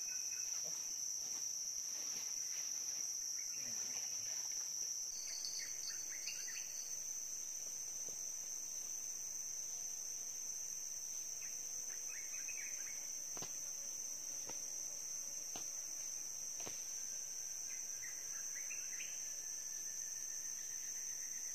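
Insects keeping up a steady, high-pitched drone in forest, with a few short bird chirps and a few faint clicks now and then.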